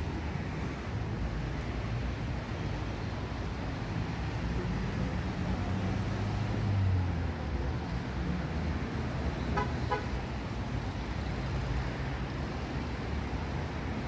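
Street traffic: a steady low rumble as a motor vehicle passes, loudest about seven seconds in. Two short vehicle-horn toots come close together about ten seconds in.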